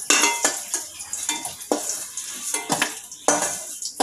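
A long metal spoon scrapes and clinks against a steel kadai and a steel bowl as fried potatoes are lifted out of hot oil, with a steady sizzle of the oil underneath. The clinks come at irregular intervals, about eight in all.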